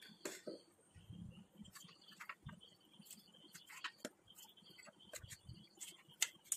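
Kitchen knife tapping and cutting on a wooden chopping board as okra pods are trimmed: faint, irregular knocks.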